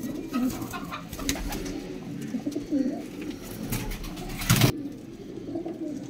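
Domestic pigeons cooing in a loft, low wavering coos going on throughout, with handling rustle and one brief loud rustle about three-quarters of the way through.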